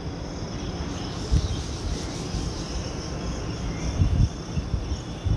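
Steady background noise picked up by a phone microphone: a high hiss with a low rumble and a few dull low thumps, about a second in and again around four seconds in.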